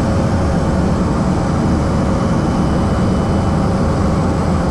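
Small plane's engine running steadily in flight, heard from inside the cabin as a loud, even low drone.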